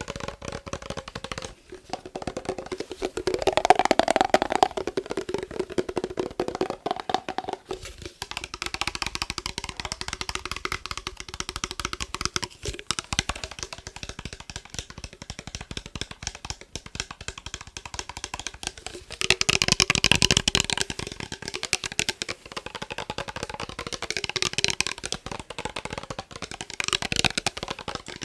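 Fast tapping on a glass mason jar, a dense run of quick taps, with louder flurries about four seconds in and again around twenty seconds in.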